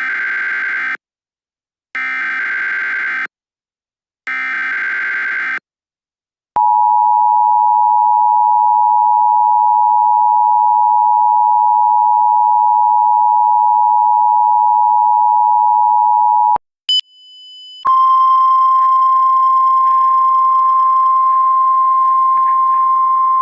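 Emergency Alert System signal: three short buzzy bursts of SAME header data, then the steady two-tone EAS attention signal held for about ten seconds. After a short break a different steady single tone starts and runs on.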